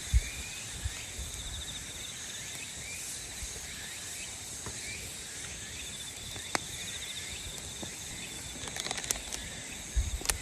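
Insects trilling steadily outdoors, a fast pulsing trill, with short scattered chirps from birds. A few light clicks and knocks near the end.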